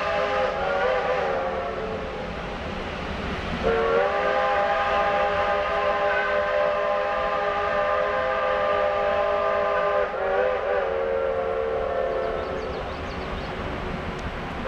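Steam locomotive whistle blowing. A blast dies away in the first second, then a long blast starts about four seconds in and holds for about six seconds before wavering and trailing off.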